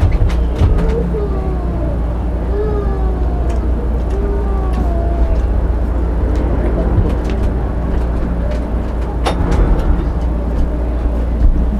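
A steady low motor-vehicle rumble, with an engine note that falls in pitch several times in the first five seconds, and scattered light clicks and taps.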